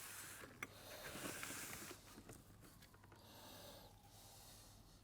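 Faint handling noises of parts being worked on at a bench: a single light click under a second in, and soft rustling.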